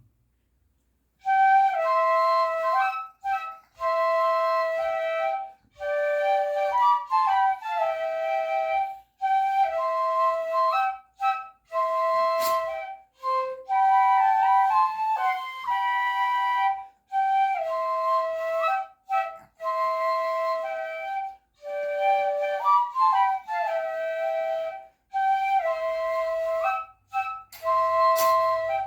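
A flute playing a melody in short phrases, each note clear and steady, with brief breaths between phrases.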